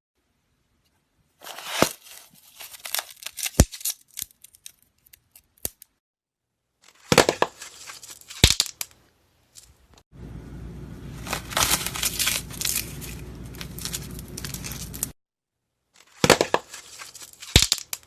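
Slime being squeezed and worked by hand, crackling with sharp pops as trapped air bubbles burst. It comes in four separate bursts with dead silence between them.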